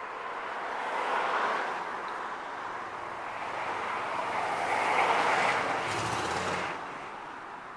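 Passing road traffic: two swells of vehicle and tyre noise, the first about a second in and a louder one around five seconds in, fading near the end.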